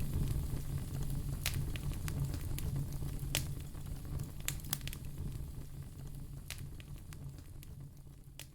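Wood fire crackling, with irregular sharp pops over a low rumbling hiss. The sound fades away toward the end.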